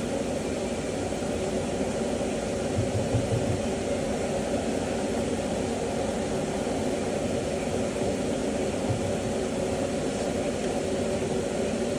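Burgers sizzling in a frying pan on the stove: a steady hiss over a constant hum.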